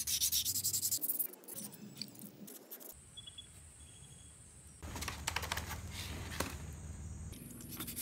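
Rusty bicycle metal parts being scrubbed by hand with a scouring pad on a wet surface: rapid, rough scraping strokes, dying down in the middle, with rubbing picking up again for the last few seconds.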